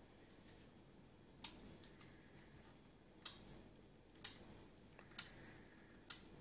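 Five sharp, light clicks about a second apart in a quiet room.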